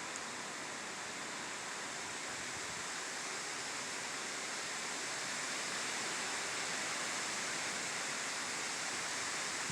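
Steady hiss of light rain falling at the onset of a thunderstorm, growing slightly louder.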